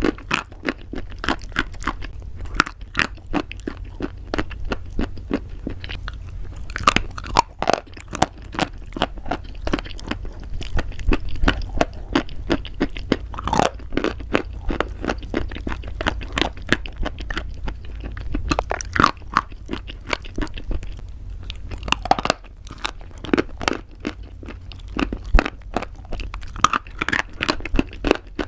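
Someone chewing crunchy pasta close to the microphone: a dense, irregular run of crisp crunches and crackles, some louder bites standing out, over a steady low hum.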